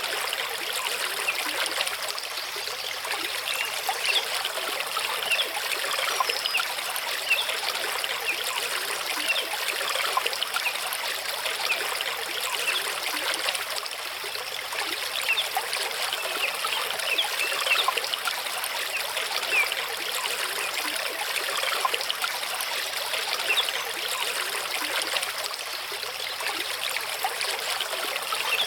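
Mountain stream running over rocks: a steady rush of water with many small bubbling trickles and splashes.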